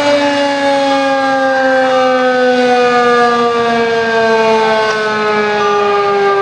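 Federal Signal 2001-SRN civil defense siren sounding loud, its wail falling slowly and steadily in pitch with no rise, as the siren winds down.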